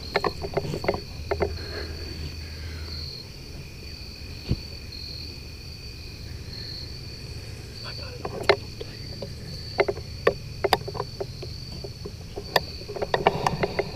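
Crickets chirping in a steady high trill that breaks into short pulses, with scattered sharp clicks and light knocks of hunting gear being handled in a tree stand, bunched at the start, in the middle and near the end.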